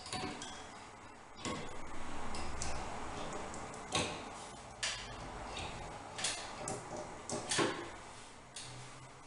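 Wooden shelf being handled and shifted into place against the wall: a string of sharp knocks and clicks, about seven in all, with a stretch of scraping about two seconds in.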